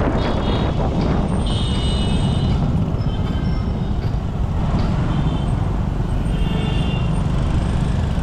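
Busy road traffic passing close by: a steady rumble of auto-rickshaw, motorbike and car engines. A few short high-pitched tones ring out over it, about one and a half seconds in, around three seconds and near seven seconds.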